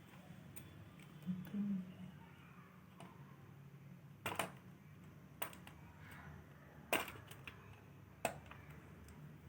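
Scattered light clicks and knocks, four or five in all, from a screwdriver and plastic-and-metal laptop parts being handled while the heat sink is worked loose from the motherboard, over a faint low hum.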